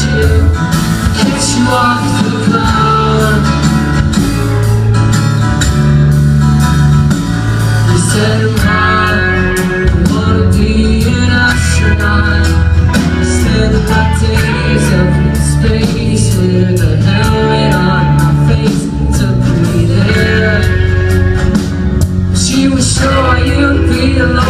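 Live rock band playing: guitar lines over a bass line and a steady drum beat.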